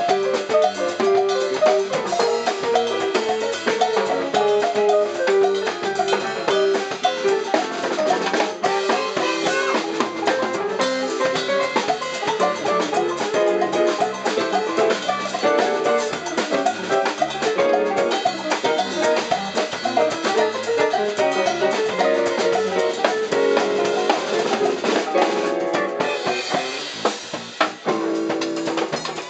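A live band playing an instrumental, with congas and drum kit driving a busy percussion part under electric guitar and keyboard.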